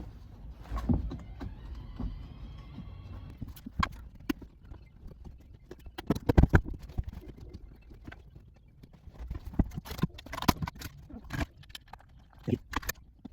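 Irregular knocks and clicks as a car's center console and its trim pieces are handled and fitted into place, with a cluster of sharper knocks about six seconds in.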